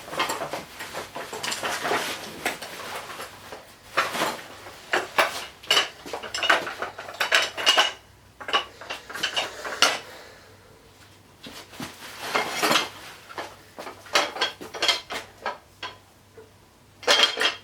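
Irregular clinking and rattling of metal parts being handled: the roof rack bars, fittings and mounting tool being unpacked, with short metallic rings among the clicks and a quieter spell midway.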